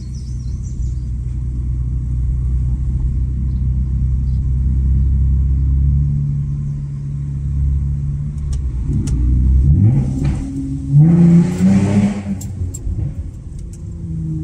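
Exhaust of a 3.5 L V6 Honda Accord with the muffler deleted, droning steadily while cruising, then rising in pitch as the car accelerates about nine seconds in. The loudest moment, around eleven to twelve seconds, adds a rush of broader noise.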